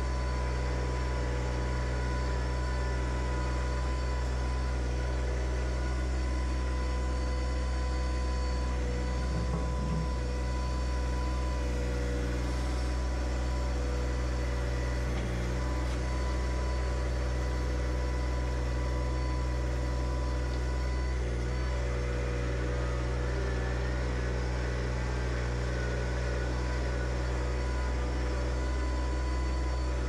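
John Deere 1025R compact tractor's three-cylinder diesel engine running at a steady speed as the tractor drives along.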